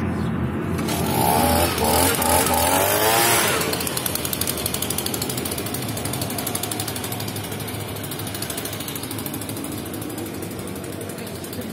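Handheld petrol leaf blower running, its small two-stroke engine revved up with a rising pitch in the first few seconds, then held at a steady high speed while blowing dust off freshly laid stone steps.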